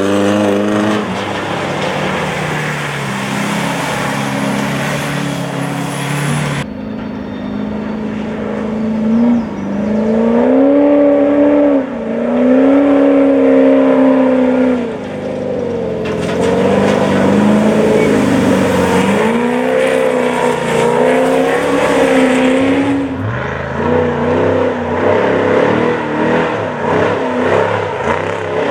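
Off-road race vehicles' engines running hard, the pitch rising and falling again and again as they rev. The sound changes abruptly three times along the way.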